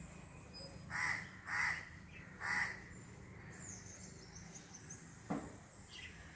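A crow cawing three times in quick succession, with faint high chirps of small birds after it and a single short knock about five seconds in.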